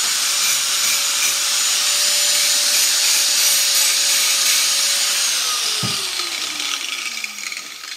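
Electric angle grinder running at speed with its disc held against a non-magnetic sump pump casing piece: a spark test, and the piece throws sparks, which marks it as stainless steel rather than aluminium. About five seconds in the grinder is switched off and its whine falls steadily as the disc spins down, with a single dull knock around six seconds.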